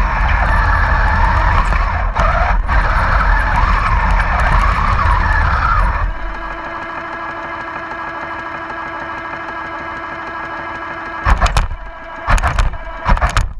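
R/C Panther tank model driving, its electric drive motors, gearbox and plastic tracks whining and grinding over the sound unit's engine noise. About six seconds in it stops and settles into a quieter steady engine-idle hum, with three short loud bursts near the end.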